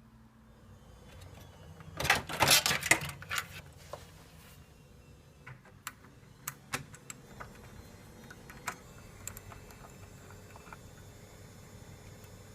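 A rapid burst of rattling clicks from small hard objects being handled, then scattered single clicks and taps over a faint steady hum.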